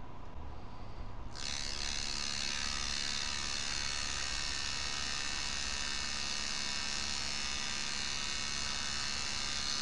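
Steady electrical buzz, thick with high overtones, from the FAC-1 lambda control unit's pulsed output. The buzz is thin at first and comes in fully about a second and a half in, as the unit resumes pulsing, and then holds steady.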